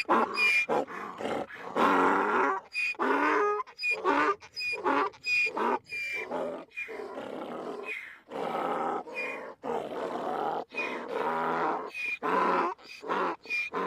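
Donkey braying: repeated hee-haw cycles, quick short high squeaks alternating with longer, lower, rasping notes, in several runs with brief pauses between them.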